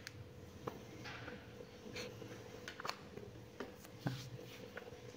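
Faint scratching of a calligraphy pen on paper, with scattered light ticks and clicks, over a faint steady hum.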